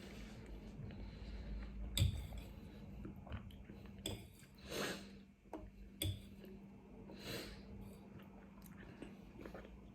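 A person eating spicy noodles and rice cakes close to the microphone: quiet chewing, a few sharp clicks about two seconds apart, and two short breathy bursts.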